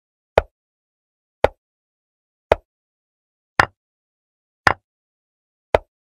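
Chess board app's piece-move sound effect: a short, dry click each time a piece is moved, six clicks about a second apart, the fourth and fifth a little sharper than the rest.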